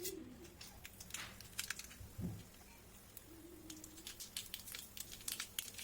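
Scattered light clicks and crackles from cooking, coming thicker toward the end.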